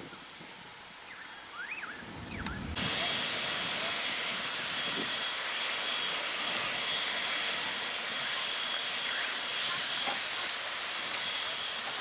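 Faint bird chirps, then from about three seconds in a steady hiss of steam from steam locomotive 1210 (built 1878) blowing off.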